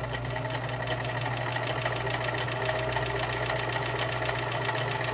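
Kenmore model 1946 convertible free-arm sewing machine running at a steady speed, sewing a zigzag stitch: an even motor hum with a fast, regular ticking of the needle strokes.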